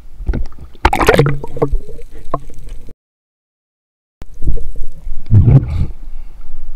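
Water gurgling and splashing around a spearfisher's camera in irregular bursts, cutting out to dead silence for about a second in the middle.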